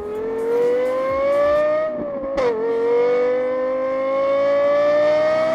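Car engine accelerating hard, its pitch climbing steadily, dropping sharply at a gear change about two seconds in, then climbing again.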